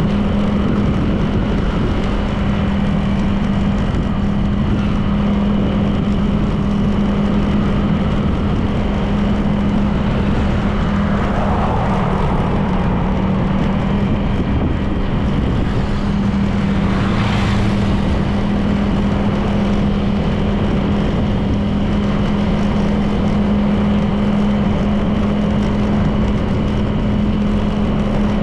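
A Honda PCX 160 scooter's single-cylinder four-stroke engine runs at a steady cruising speed with one constant tone, under wind and tyre noise. There is a brief whoosh about seventeen seconds in.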